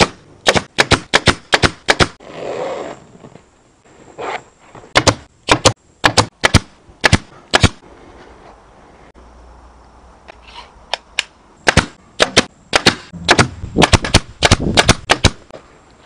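Pneumatic fine-wire upholstery stapler firing stainless steel staples through vinyl, in quick runs of sharp shots with pauses of a few seconds between runs.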